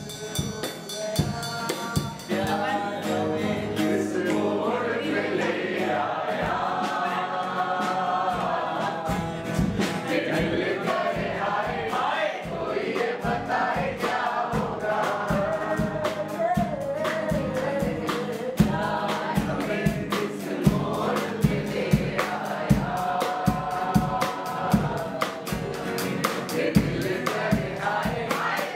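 A group of people singing together over a live band, with a drum kit keeping a steady beat; the drum hits grow sharper in the second half.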